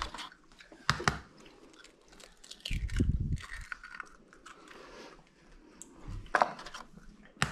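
Raw eggs being cracked: a few sharp cracks of eggshell, with a dull thud about three seconds in as egg goes into the blender jar of vegetable pulp.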